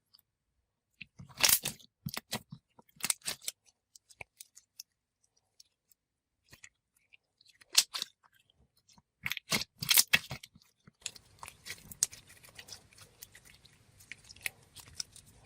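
Thick, glossy slime being played with by hand, giving scattered sharp pops and clicks in small clusters with quiet gaps between.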